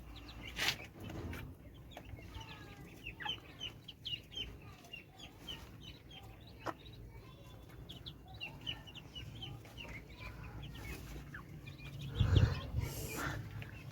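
A flock of poultry calling, with many short high peeps and clucks overlapping throughout. About twelve seconds in comes a louder low thump.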